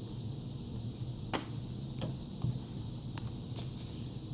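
Trading card packs and box being handled on a table: a few light clicks and taps over a steady low hum.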